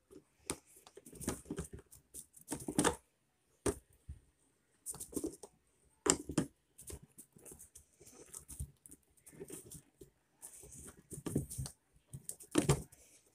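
Skateboard truck axle nut being tightened with the socket end of a skate T-tool: irregular metal clicks and scrapes as the socket turns on the nut and the wheel shifts on the axle.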